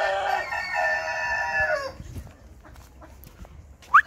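Rooster finishing a long drawn-out crow, the held note sliding down and dying away about two seconds in; the onlooker takes it for a Denizli, a long-crowing rooster breed. Near the end comes a short, sharp rising whistle.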